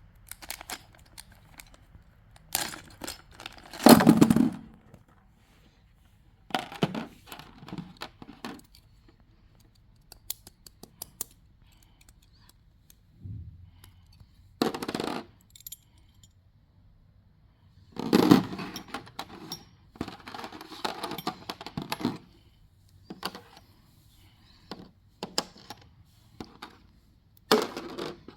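Unboxing a Metal Fight Beyblade spinning top: its packaging and small hard parts being handled, in irregular clicks, clatters and rustling with pauses between. The loudest clatters come about four seconds in and again around eighteen seconds.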